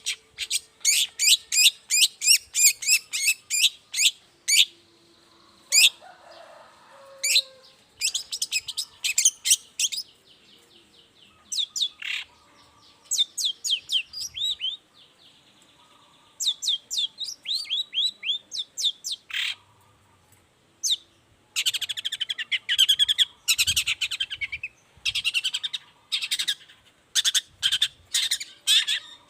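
Long-tailed shrike (cendet) singing: bursts of rapid, sharp chattering notes, each slurring downward, a few seconds at a time with short pauses between.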